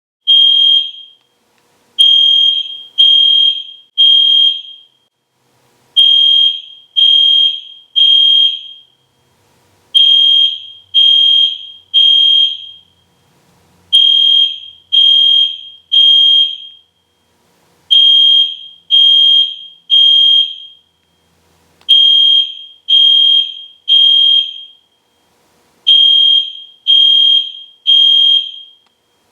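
EST Genesis fire alarm horn sounding at full volume with a high, harsh electronic tone: three short blasts, a pause, then three more, repeating evenly. This is the temporal-three evacuation pattern.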